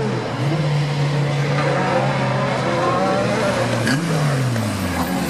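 Rally car engine pulling at steady revs. About four seconds in there is a sharp crack and a quick rise in revs, then the revs fall away as the car lifts off the throttle.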